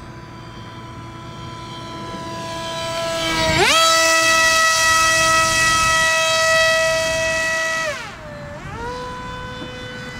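Foamboard RC F-117 model's battery-powered electric motor and propeller whining in flight. The pitch jumps up sharply about a third of the way in as the throttle is opened, stays high and loud for about four seconds, then drops back to a lower steady whine near the end.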